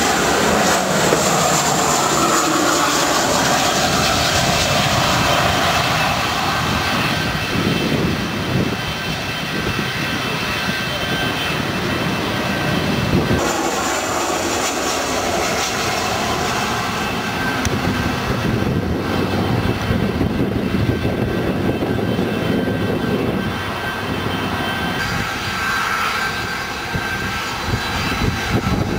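Jet engines of Boeing 737 airliners on final approach passing close by. At the start an engine whine falls in pitch as the aircraft goes past. The sound changes abruptly twice, about 13 and 25 seconds in, as the recording cuts to other aircraft.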